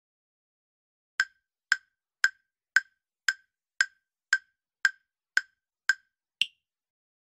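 Countdown-timer tick sound effect: eleven short, sharp ticks at about two a second, starting about a second in. The last tick is higher-pitched, marking the end of the countdown.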